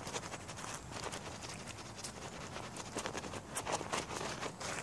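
A hand rubbing back and forth over the flesh side of a grey squirrel hide laid on a plastic tarp, working it during tanning: a fast, irregular run of short rubbing and rustling strokes.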